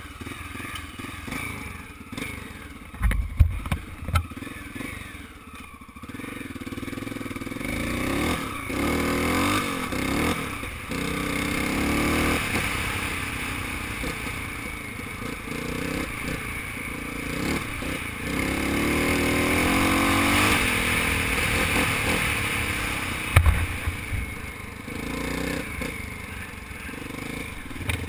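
1985 Honda XR600R's single-cylinder four-stroke engine pulling the dirt bike along a grassy track and trail, its revs rising and falling several times as the throttle is rolled on and off. There are a few sharp knocks about three to four seconds in, and again near the end.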